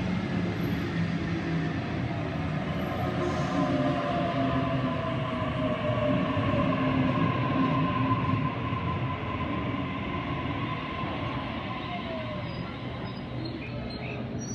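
Sydney Trains Waratah A-set double-deck electric train running in slowly along the platform: steady wheel-and-rail rumble with a whine that falls in pitch as it slows for the stop, easing off over the last few seconds.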